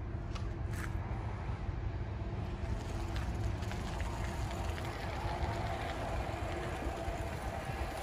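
Wind buffeting the microphone as a steady low rumble, with a faint steady hum underneath.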